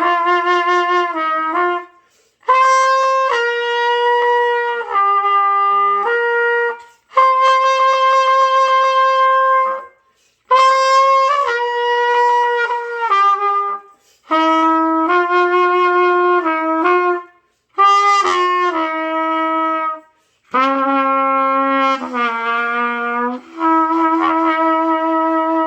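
A beginner's trumpet playing a slow melody in held notes, in about eight short phrases, each broken off by a brief pause for breath.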